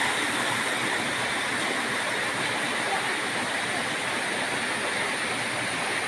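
Steady rush of a waterfall pouring into its plunge pool.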